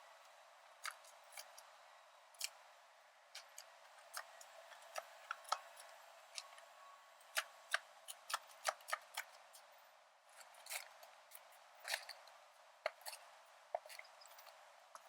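Faint, irregular crunches and clicks of snow being shovelled off a deck, at uneven spacing.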